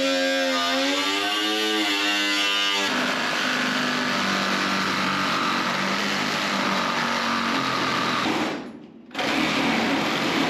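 Handheld angle grinder cutting through the sheet-steel firewall of an old car body, the wheel grinding steadily. The cutting stops abruptly for about half a second near nine seconds, then carries on.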